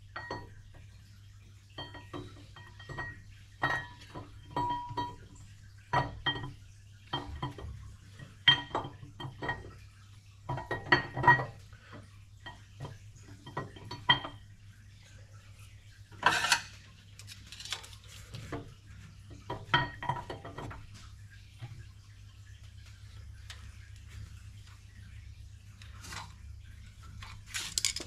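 Steel hydraulic roller camshaft being slid and turned by hand into a Holden 308 V8 block, its lobes and journals knocking and clinking against the block and cam bearings at irregular intervals with a short metallic ring. A couple of longer rasping sounds come a little past the middle, then it goes quieter.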